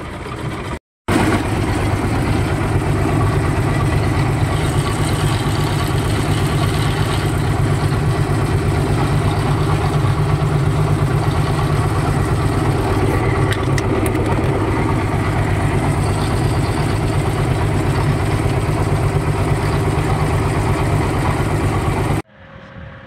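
Fishing boat's engine running steadily and loudly at an even speed. It starts abruptly after a short silent cut about a second in and stops abruptly near the end.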